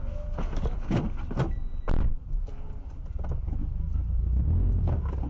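Low steady rumble heard from inside a stopped car, with a few sharp knocks or thuds from about half a second to two seconds in, the loudest near two seconds.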